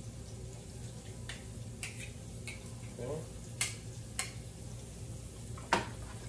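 Sharp taps and clicks of a kitchen knife and utensils, about six scattered through, the loudest near the end, over a steady low hum and the faint sizzle of shallots and garlic sautéing in butter.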